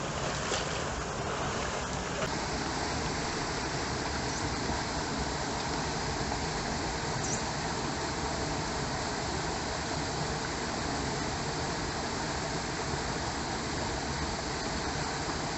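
Small waterfall pouring into a shallow creek pool: a steady, even rush of water.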